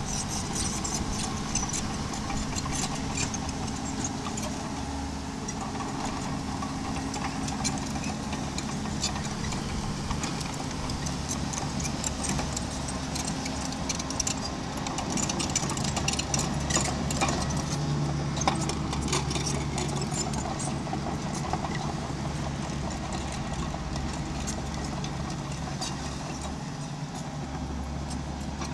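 Small diesel bulldozer engine running steadily, with frequent metallic clinks and clatter over it, a little louder midway.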